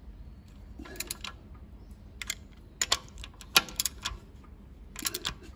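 Hand socket ratchet clicking in short runs as it turns a nut down a new knuckle-arm stud bolt on a Toyota Prado 78's steering knuckle, with brief pauses between strokes.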